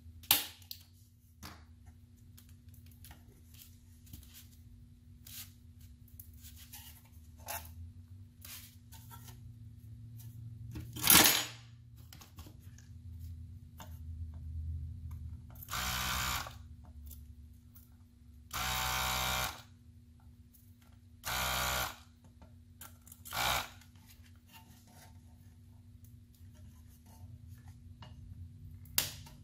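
Handheld desoldering gun's vacuum pump running in four short bursts of about half a second to a second each, sucking solder off a circuit board's stepper-motor pins. A loud sharp knock comes before the bursts, with small handling clicks and a faint steady hum underneath.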